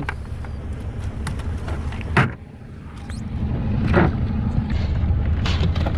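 Steady low rumble on a boat deck, with two sharp knocks about two and four seconds in as the catch is handled and dropped into the live well.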